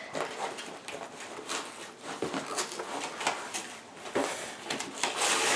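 Cardboard and plastic packaging being torn off and handled: an irregular run of crinkling, rustling and small clicks, louder near the end.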